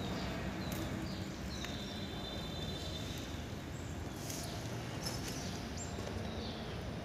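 Small birds chirping now and then in short high calls, one held for over a second, over a steady low hum of background noise.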